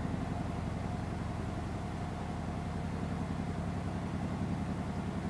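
Steady low mechanical hum that runs unchanged, with a fine fast flutter in it.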